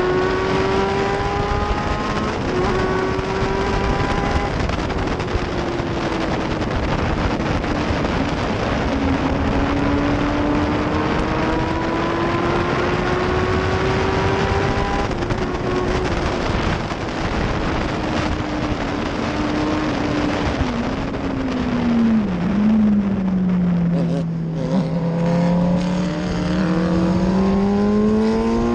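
F1000 race car's 1000 cc motorcycle-derived engine at racing speed, heard onboard over heavy wind rush. The engine note climbs slowly along the straight and falls away from about halfway. It steps down sharply a few times as the car slows for a corner, then climbs again near the end as it accelerates.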